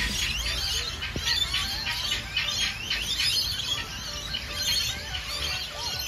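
Many small birds chirping and twittering at once in a continuous overlapping chorus of short high chirps and trills.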